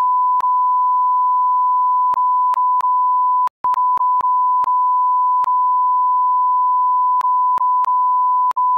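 Censor bleep: a steady 1 kHz beep tone laid over dialogue to blot out profanity, running almost without a break, with a short gap about three and a half seconds in and small clicks where the separate bleeps are joined.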